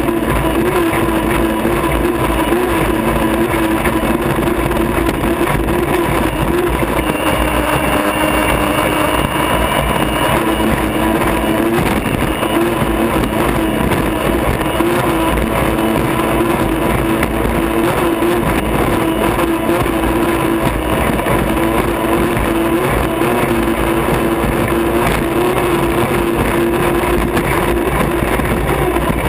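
Turbine engine of an unlimited racing hydroplane running flat out, heard from inside the cockpit. A steady whine sits over a loud rush of water and wind against the hull.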